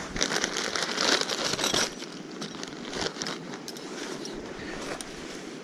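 Tent fabric rustling and crinkling as a pop-up tent is handled, busiest in the first two seconds. It then drops to a steady background rush with a few light clicks.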